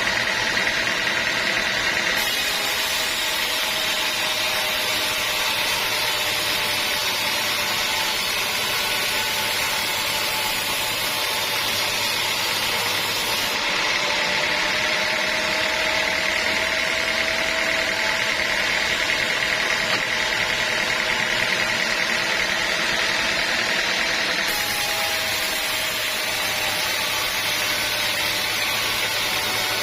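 Sawmill machinery running steadily while teak logs are sawn, with a constant high whine over mechanical noise. The sound shifts abruptly about two, thirteen and twenty-four seconds in.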